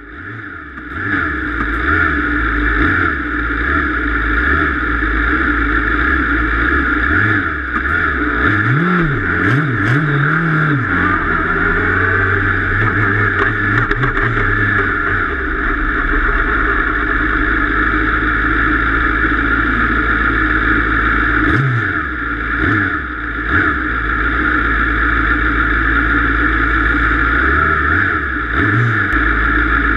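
Radical SR3 RS prototype's four-cylinder engine idling, heard close from the cockpit, with a few short throttle blips about eight to eleven seconds in, once more a little after twenty seconds, and again near the end.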